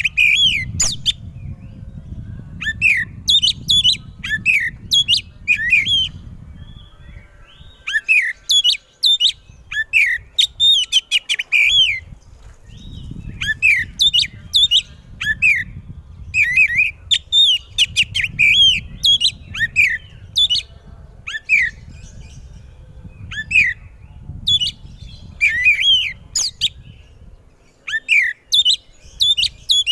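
Oriental magpie-robin singing loudly: bouts of rapid, varied whistles and chirps with short pauses between them.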